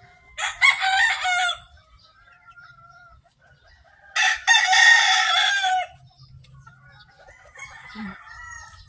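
A rooster crowing twice, once about half a second in and again about four seconds in, each crow lasting a second or two. Quieter chicken calls come in between and near the end.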